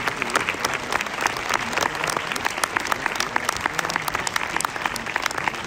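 A large audience applauding, many hands clapping in a dense, steady patter.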